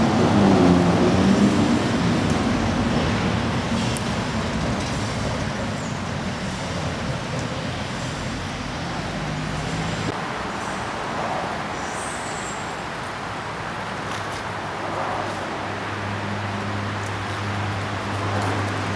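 Road traffic noise: a motor vehicle passing is loudest at the start and fades away, then a low steady hum comes in near the end.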